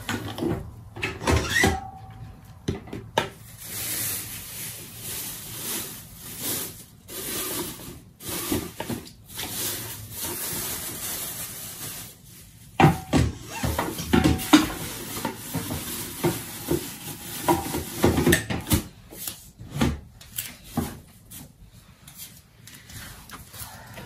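A thin plastic bin liner rustling as it is handled and fitted over a small plastic bathroom bin, with irregular knocks and clatter from the bin being set down and moved. The louder knocks come around the middle.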